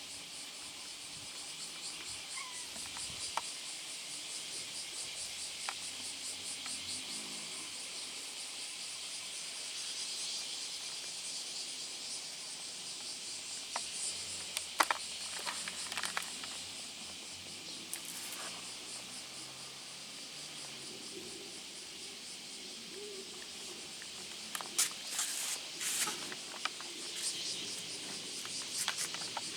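Insects chirring steadily in a high, finely pulsing drone, with a few short sharp clicks and taps about halfway through and again near the end.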